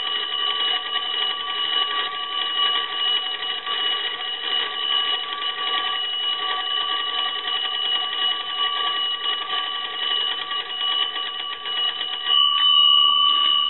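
The twin gong bells of a Kellogg wooden wall telephone, rung by its hand-cranked magneto: a continuous rapid ringing, a little louder near the end. The freshly repaired magneto and bell ringer are working.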